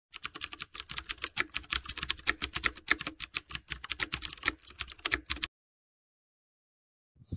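Typing sound effect: a rapid run of computer keyboard key clicks, several a second, stopping about five and a half seconds in.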